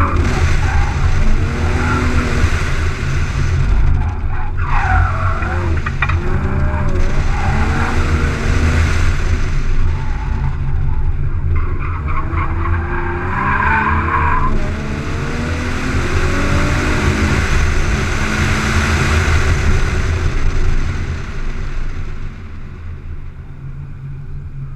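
Nissan 350Z's 3.5-litre V6 revving up and down as the car is driven hard through an autocross course, with the tyres squealing in the turns, loudest about five seconds in and again around twelve to fourteen seconds in. The engine gets quieter near the end as the car slows.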